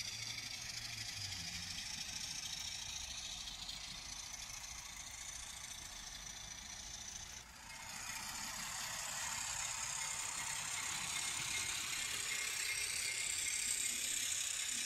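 HO scale model trains running on the layout track: a steady whir and rattle of motors and metal wheels on the rails. The sound dips briefly about seven and a half seconds in and is a little louder afterwards.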